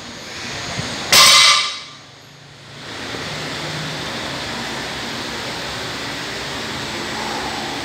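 A forceful, hissing breath out about a second in, from a lifter straining through a barbell bent-over row, over a steady background hiss.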